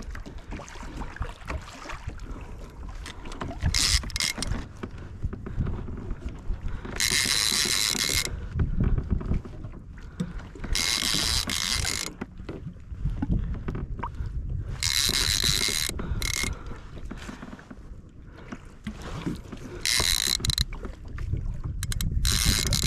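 Conventional fishing reel whirring in five bursts, each about a second long and a few seconds apart, under the load of a large greater amberjack (kahala) on the line. A low rumble of water and wind runs beneath.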